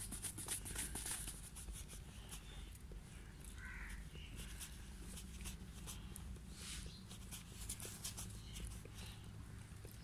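Two goat kids suckling at their mother's udder. A dense run of sharp smacking clicks fills the first couple of seconds, then scattered clicks follow over a steady low hum.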